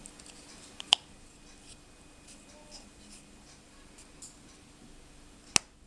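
Plastic clicks from the back cover of a Mercedes W202 chrome key fob being hooked in by its two teeth and pressed shut over the new battery: a quick pair of clicks about a second in, faint handling ticks, and one loud sharp click near the end.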